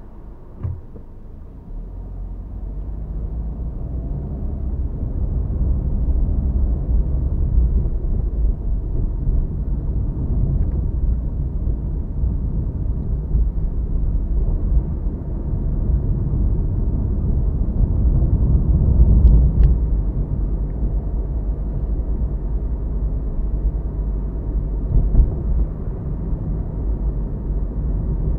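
Low, steady rumble of a car's engine and tyres heard from inside the car. It swells over the first few seconds as the car pulls away from a stop, then runs on at cruising level.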